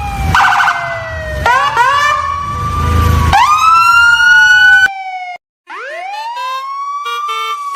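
Siren-like electronic wails: several pitched tones sliding up and falling away over one another, breaking off suddenly about five seconds in, then one more wail rising and slowly falling.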